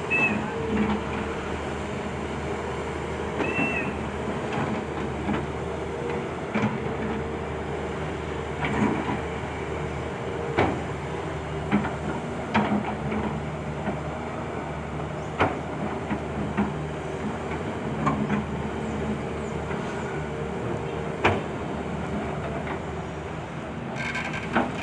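Volvo hydraulic excavator's diesel engine running steadily, with irregular sharp metallic knocks every few seconds.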